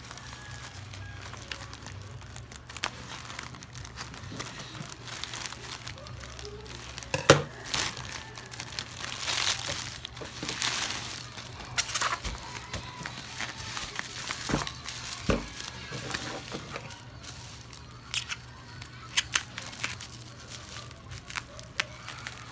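Plastic courier mailer and bubble wrap crinkling and rustling as they are handled and pulled apart, with scattered sharp crackles, the loudest about seven seconds in.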